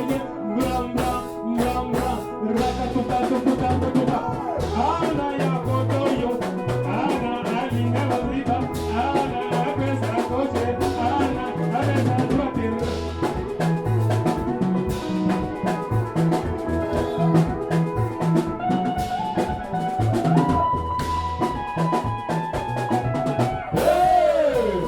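Dance music with a steady drum beat, bass and singing.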